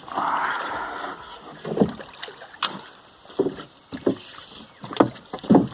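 A small river boat being handled: a rush of water or splashing, then about six irregular knocks and thuds against the boat, the loudest two near the end.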